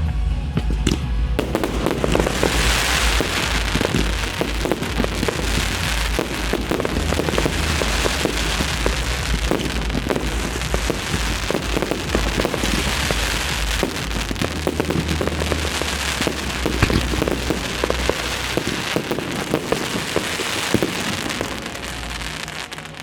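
A dense fireworks barrage: many shells popping and crackling almost without a break, over music with a steady bass, dying down briefly near the end.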